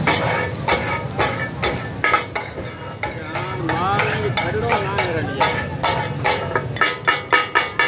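Two steel spatulas striking and scraping a flat iron griddle while chopping and stirring mutton katakat, over a steady sizzle of frying. The clanging strikes come about twice a second and quicken into a rapid, ringing clatter near the end.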